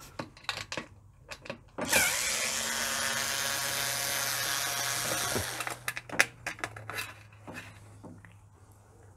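Electric screwdriver with a Torx T15 bit spinning out a screw from a Bosch dishwasher's lower front panel. It runs steadily for about three and a half seconds, starting about two seconds in, with a whine that drops in pitch as it stops. Small clicks and taps from handling the tool and screws come before and after.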